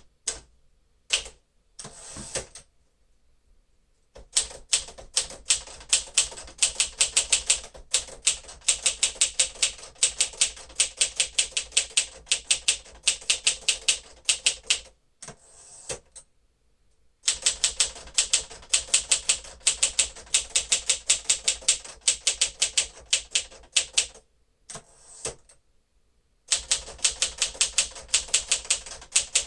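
1954 Smith-Corona Silent-Super manual typewriter being typed on quickly: runs of key strikes at several a second, broken by a few short pauses, with only a few single strokes at first.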